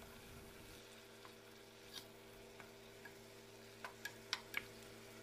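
Pork pieces faintly sizzling as they fry in their own fat in a nonstick pan, with a few light clicks of a wooden spatula knocking against the pan, most of them bunched together near the end.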